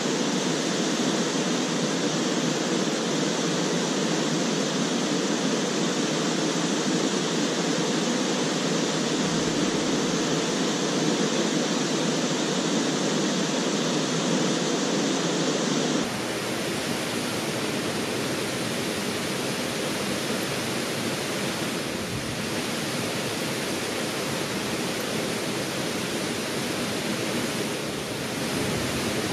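Steady rushing water, as of a stream or cascade. About halfway through it changes abruptly to a brighter, slightly quieter rush.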